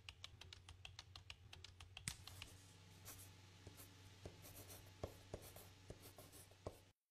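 Marker writing on a whiteboard: faint short squeaks and taps of the pen strokes.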